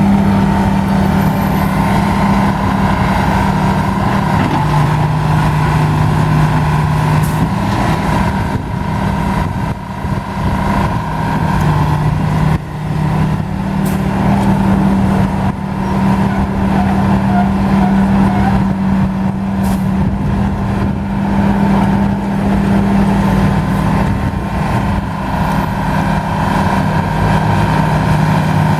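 Engine of a vintage Bucyrus-Erie 30-B pull shovel running steadily while the machine digs and dumps. Its note drops lower for a few seconds several times as it works.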